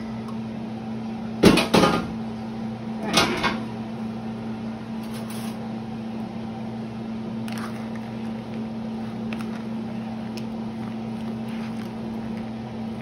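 Two knocks, the louder about a second and a half in and another about three seconds in, as the metal sheet pan of roasted corn is set down; under them a steady low electrical hum of a kitchen appliance.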